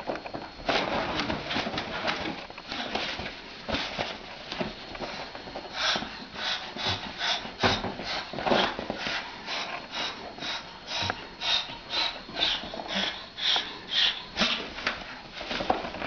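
Moluccan cockatoo hissing at a cat in short, breathy puffs, two or three a second, with its crest raised in threat. Rustling and scuffling come before the puffs start, about six seconds in.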